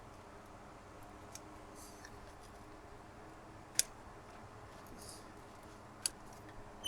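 Pruning shears snipping Leyland cypress twigs: two sharp snips, about four seconds and six seconds in, with a few faint ticks between.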